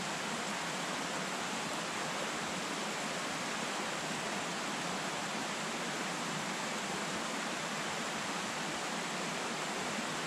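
Steady rushing of a woodland stream running through a gorge, an even hiss that does not change.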